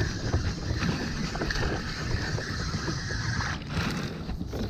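Spinning reel being cranked to bring in a hooked fish, a steady whir under gusty wind buffeting the microphone; the reeling stops about three and a half seconds in.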